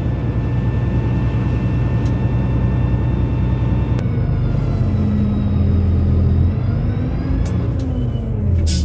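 Dump truck's diesel engine running steadily with the PTO engaged, driving the hydraulic hoist that raises the loaded dump bed. The drone's pitch shifts slightly from about four seconds in, and there is a sharp click near the end.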